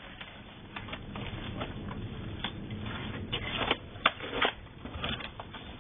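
Slowed-down clicks and scratches from a frilled dragon scrambling on a branch and lunging at a fuzzy mouse held in tweezers. The sharpest clicks come about four seconds in, during the lunge, over a low steady rumble.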